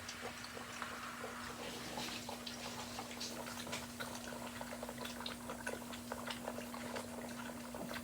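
Five-week-old bully puppies lapping water from a bowl together: a dense, irregular patter of small wet licking clicks.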